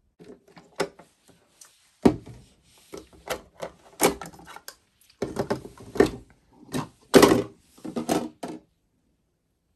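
Irregular knocks and clattering handling noises in short clusters over several seconds, like things being moved on a hard surface.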